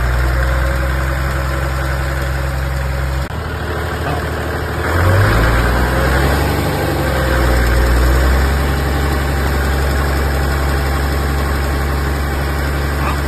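Toyota 1HD-T 4.2-litre straight-six turbo-diesel running steadily. About three seconds in the sound drops abruptly, then the revs rise from about five seconds in and hold steady at a higher speed. This is the in-gear run the owner uses to bring out a persistent knock, which he suspects is crank flex.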